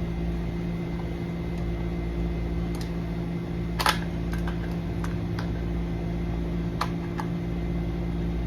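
A few sharp metallic clicks and taps from lock hardware being handled while a key cylinder is removed, the loudest about four seconds in. A steady low hum runs underneath.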